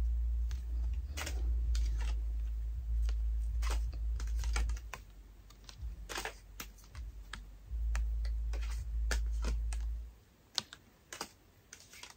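Irregular light clicks and taps of photo cards and their plastic packaging being handled and sorted. Under them runs a low steady hum that stops about ten seconds in.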